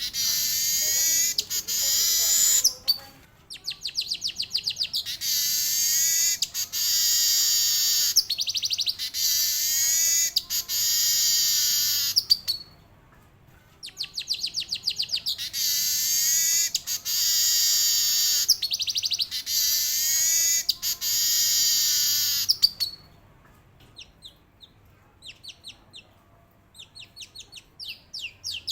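Male weaver (manyar) singing: repeated bouts that open as a fast run of ticking notes and go into long, buzzy rolling trills. There is a short break about halfway through, and the last few seconds hold only scattered short notes.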